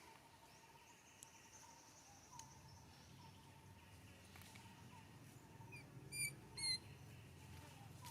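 Two short, high-pitched squeaks from a baby monkey, a fraction of a second apart, about six seconds in.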